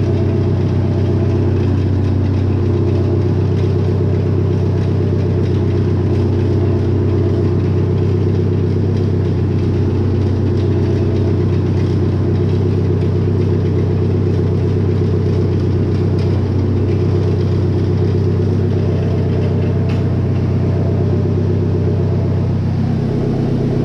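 Old tractor engine running steadily, driving a sprayer pump at low pressure with the relief valve backed out.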